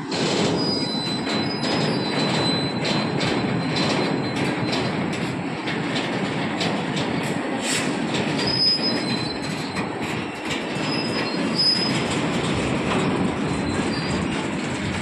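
Covered freight wagons of a goods train rolling past close by: a steady noise of steel wheels on rail, with frequent clanks and knocks, and thin high wheel squeals that come and go.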